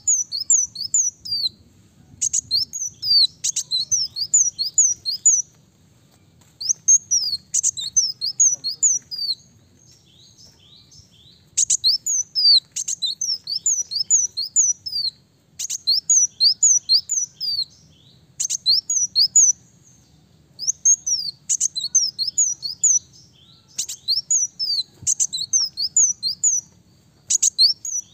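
Ruby-cheeked sunbird (kolibri daun) singing: short, high-pitched phrases of rapid falling chirps, each phrase a second or two long, repeated over and over with brief pauses between them.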